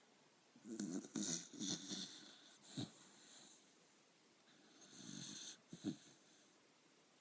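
Jack Russell terrier snoring in its sleep: two long snoring breaths, the first about a second in and the second about five seconds in, with a short sharp breath between them.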